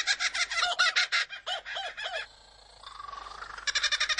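Superb lyrebird singing mimicked calls: a rapid chattering laugh like a kookaburra's, broken just past the middle by a short pause and a rising whistle, then the fast chattering again.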